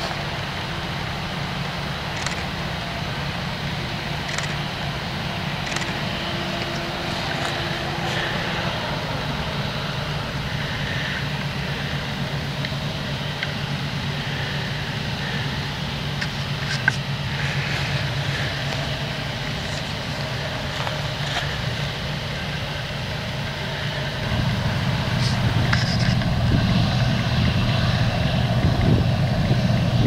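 Claas Lexion 780 combine harvester running while cutting wheat, with the John Deere 6215R tractor pulling the chaser bin alongside: a steady engine drone with a low hum. It grows louder, with more low rumble, over the last several seconds.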